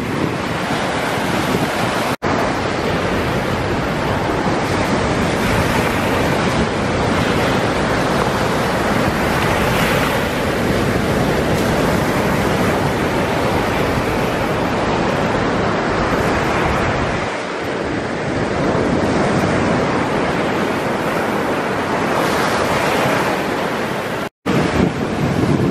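Sea surf breaking and washing up on a sandy beach, a continuous rushing that swells and eases with the waves. The sound cuts out for an instant twice, about two seconds in and near the end.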